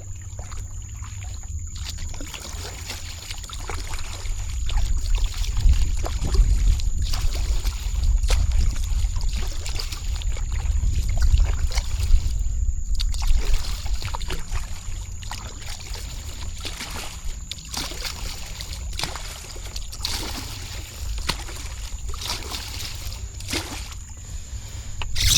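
Water sloshing and trickling around a fishing kayak, with a steady low rumble of wind on the microphone.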